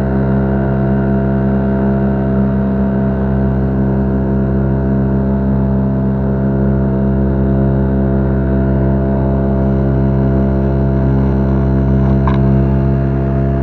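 Boat's outboard motor running steadily under way.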